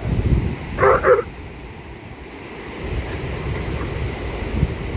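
A dog barks twice in quick succession about a second in, over wind noise on the microphone and surf.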